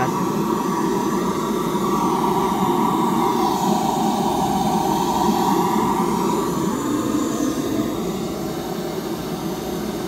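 Large outdoor sound system playing a steady test noise during RTA tuning, heard across the field as a continuous rushing sound that eases a little near the end.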